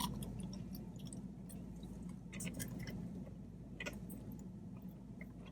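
Faint close-up chewing, with scattered soft mouth clicks and smacks.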